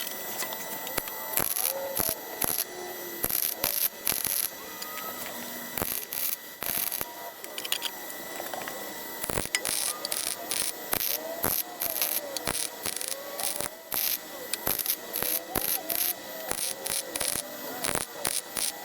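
MIG welder arc crackling and sputtering in short stop-start bursts as a repair patch is stitch-welded into a rusted wheel well.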